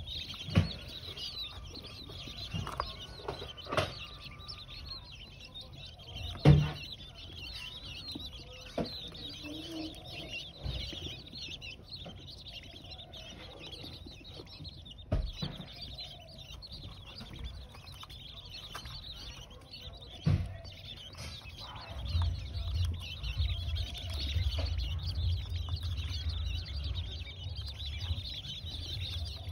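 A small flock of young blue-breasted quail (king quail) chirping softly and continuously, with a few sharp knocks scattered through; a low rumble comes in about 22 seconds in.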